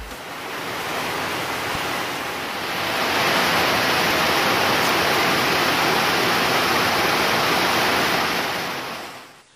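Water boiling hard in a covered stainless steel stockpot: a steady bubbling hiss that gets a little louder about three seconds in and fades out near the end.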